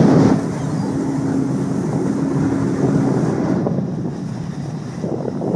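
Ferry's engine droning and its propeller wake churning, with wind blowing on the microphone. The engine's steady hum fades about three seconds in.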